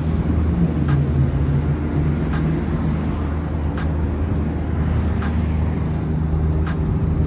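Steady city traffic rumble, with a faint short knock repeating about every second and a half.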